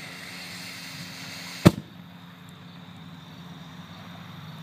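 Five grams of unconfined flash powder going off in a single sharp, loud bang about a second and a half in, over steady outdoor background noise.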